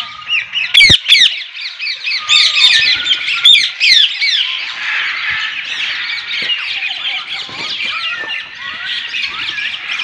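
A flock of caged ring-necked parakeets screeching and chattering, many sharp squawks overlapping, loudest in the first few seconds, then settling into a steady dense chatter. A bump about a second in.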